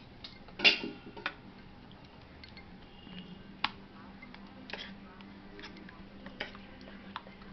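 Steel spoon clinking and scraping against a stainless steel bowl while stirring thick cucumber raita: irregular light clicks, the loudest less than a second in.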